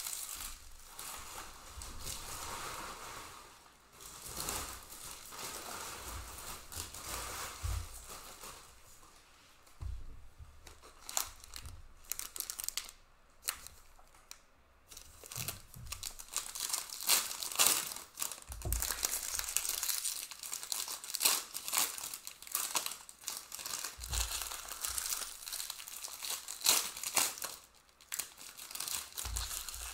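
Foil trading-card pack wrappers of 2020-21 Panini Prizm Premier League packs crinkling and being torn open, with an irregular crackle of short sharp rustles that grows busier in the second half.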